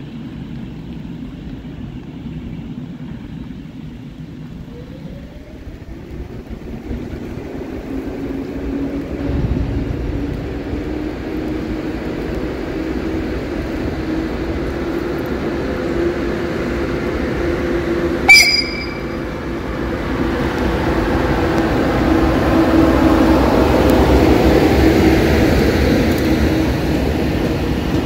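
A train moving through a station, its low rumble and steady hum growing louder and slowly rising in pitch. One sudden sharp bang about 18 seconds in is the loudest sound.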